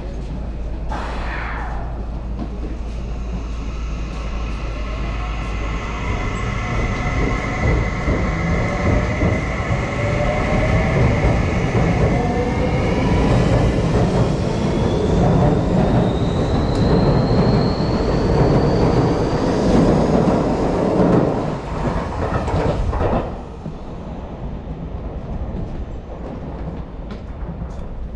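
Seibu Shinjuku Line electric commuter train pulling out and accelerating: a motor whine climbs steadily in pitch over wheel-on-rail noise. It grows louder, then drops away sharply about 23 seconds in.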